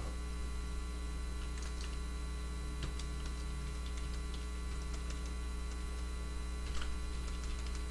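Steady low electrical mains hum, with a few faint keyboard key clicks.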